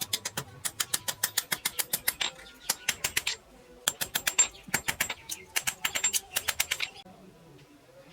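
A small hammer tapping rapidly on steel, about six light blows a second in several bursts, each with a short metallic ring; the tapping stops about seven seconds in.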